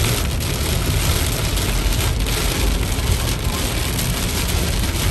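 Heavy rain falling on a car's windshield and roof, heard from inside the moving car, over the steady hiss of tyres on the wet road and the hum of the car.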